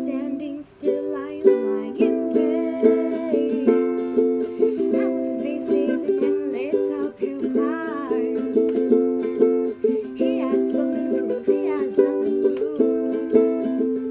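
Music: steady plucked-string chords that change every second or two.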